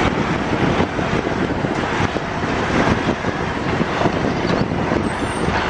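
Heavy eight-wheel dump truck driving across loose sand, its diesel engine running steadily, with wind buffeting the microphone.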